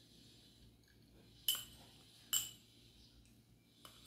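A metal spoon clinks sharply twice, a little under a second apart, with a fainter tick near the end, as topping is scooped and spooned onto mussels in a metal baking tray.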